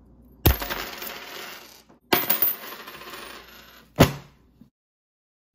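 Coins dropped onto a hard surface three times: the first two drops spill and rattle for about a second and a half each, and the third is a short clatter.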